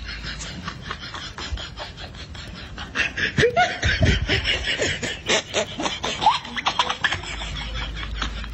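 People laughing and snickering in quick bursts, starting about three seconds in and dying down near the end.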